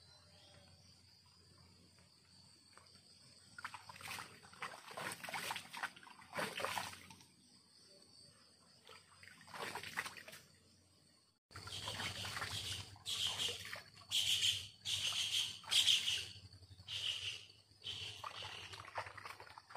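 Steady high chirring of crickets, with irregular bursts of splashing and trickling water.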